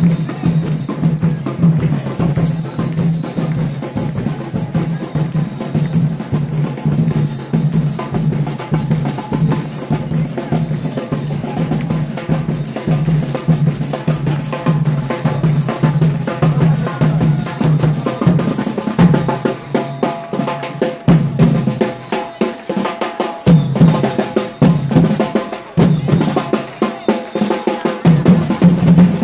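Drums, bass drum and snare, beating a fast steady rhythm among a marching crowd, the beat breaking up in places during the last third.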